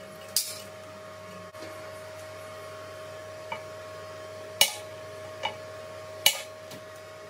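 Sharp metal-on-metal clacks as a speaker-magnet torch holder and its mild-steel bracket are pulled off and snapped back down onto a steel welding table while a MIG torch is handled against it: five clacks, the loudest just after the start, about halfway and near the end. A steady faint tone runs underneath.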